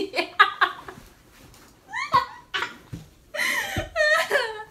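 A woman and a young girl laughing hard in fits of giggles, in short bursts with a brief lull about a second in and the heaviest laughing near the end.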